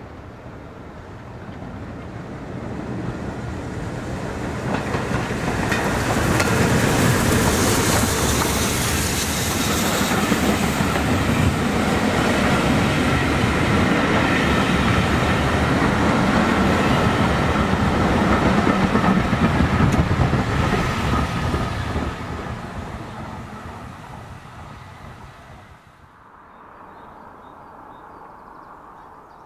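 BR Standard Class 9F steam locomotive and its passenger coaches passing close by, the wheels clattering over the rails. The sound builds as the train approaches, stays loud while the coaches go past, then fades away. About four seconds from the end it cuts to a much quieter outdoor background.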